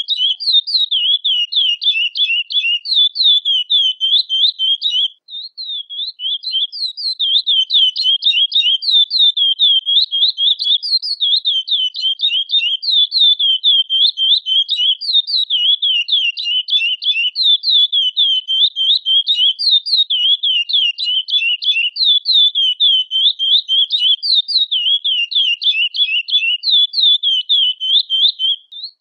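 Chestnut-bellied seed finch (curió, Sporophila angolensis) calling and singing in a rapid, continuous run of short high chirps, with a brief pause about five seconds in.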